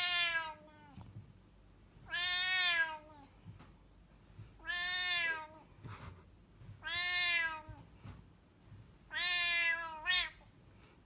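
A cat meowing in protest as a hand reaches to stroke it: five long, drawn-out meows about two seconds apart, each rising and then falling in pitch.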